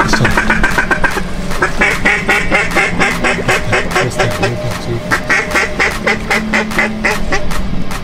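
Duck quacking in a fast, continuous run of short calls, over background music.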